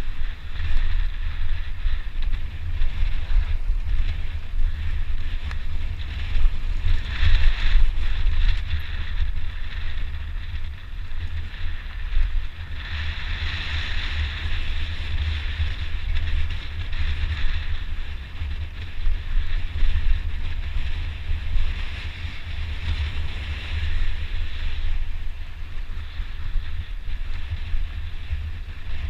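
Wind buffeting the microphone of a downhill mountain bike at speed, a heavy rumble over the steady hiss and rattle of the bike on a rough trail, growing louder about seven seconds in and again from about thirteen to twenty-five seconds.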